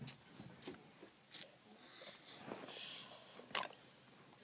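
Kids drinking from juice boxes through straws: soft sucking and slurping with a few short sharp clicks and smacks, a hissy slurp about two and a half seconds in.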